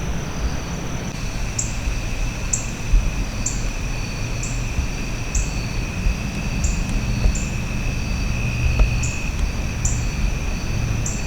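Dusk insect chorus: steady high trilling, with a short higher chirp repeating about once a second, over a low steady rumble.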